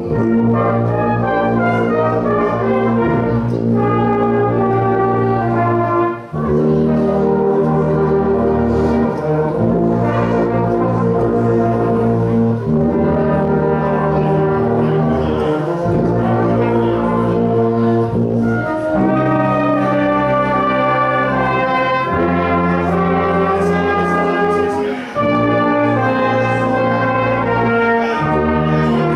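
Silver brass band of cornets, tenor horns and euphoniums playing a slow piece in sustained chords, with short breaks between phrases about six seconds in and again near twenty-five seconds.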